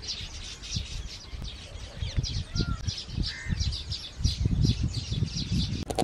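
Baya weavers chattering at their nest colony: a quick, even run of high, sharp chirps, about four a second, over low rumbling noise.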